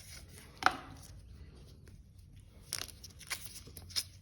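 Cardboard smartwatch box being opened and its plastic wrap pulled off by hand: faint rustling with a sharp click about two-thirds of a second in and a few more clicks near the end.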